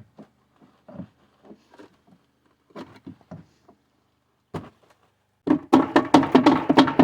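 Scattered knocks and taps of wood as nailed-in wooden dividers are knocked out of a wooden box. About five and a half seconds in, loud background music with a strong, fast beat comes in.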